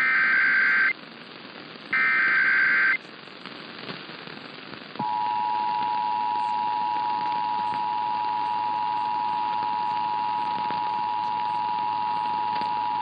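Emergency Alert System SAME header: two one-second bursts of buzzing digital data tones, two seconds apart. About five seconds in, the steady two-tone EAS attention signal starts and holds, announcing that an emergency alert broadcast follows.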